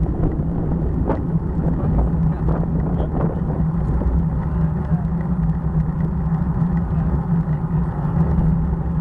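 Steady low rumble of wind on a bike-mounted camera's microphone and road-bike tyres rolling over cracked asphalt while riding, with a few faint ticks in the first few seconds.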